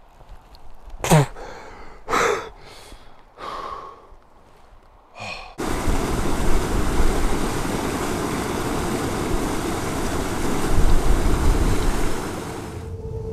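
A few short breathy vocal sounds. Then, about five and a half seconds in, a loud steady rush of water starts abruptly and cuts off shortly before the end.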